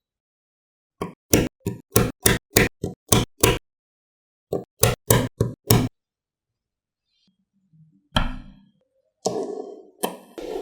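Small magnetic balls snapping together in a run of sharp clicks: about ten in quick succession, then five more after a short pause. Near the end come longer, softer rattling sounds.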